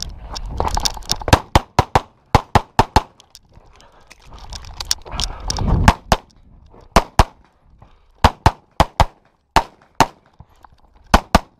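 Competition handgun fire: a rapid string of pistol shots, many in quick pairs about a fifth of a second apart, with short pauses between groups. Low rumbling noise swells under the shots near the start and again around the sixth second.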